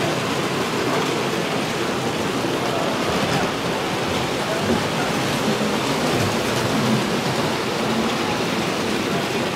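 Steady din of a busy exhibition hall: indistinct crowd chatter blended with the running of 2-rail Hornby Dublo model trains on the layout, no single voice or event standing out.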